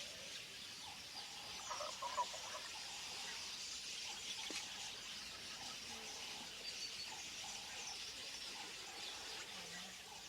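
Wild birds calling in the bush over a steady high hiss, with a couple of louder chirps about two seconds in.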